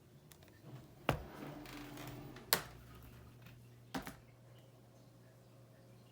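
A few sharp clicks and knocks, about a second and a half apart, from handling a USB charging cable and the devices being plugged into it, with some rustling between the first two.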